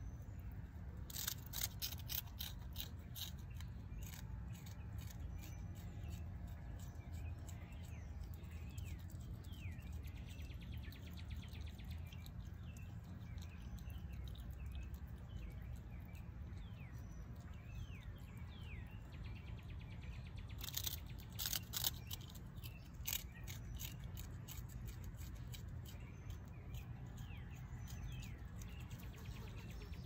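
An opossum chewing and smacking on its food, with quick runs of sharp clicky bites about a second in and again about two-thirds of the way through. Faint bird chirps and a steady low hum sit behind it.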